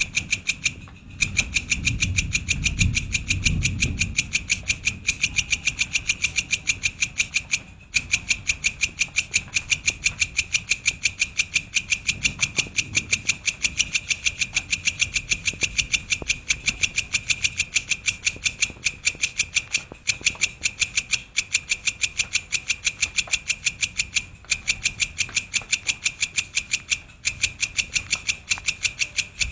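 Songbird call recording: a long, rapid run of identical sharp, high notes repeating several times a second, broken by a few short pauses. It is the machine-gun 'tembakan' style of call used to tutor cage birds. A low rumble sits under it in the first few seconds.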